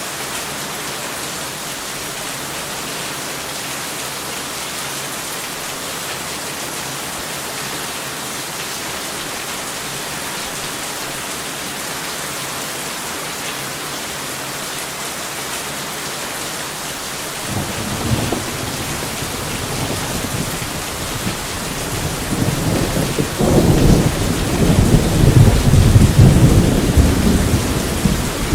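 Steady heavy rain hissing, with a deep rumble of thunder building up about two thirds of the way through and peaking near the end.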